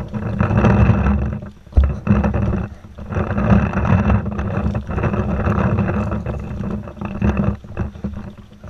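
Uneven rumbling rustle of wind and handling noise on a body-worn action camera's microphone as the player moves along a brushy trail, with a sharp thump about two seconds in.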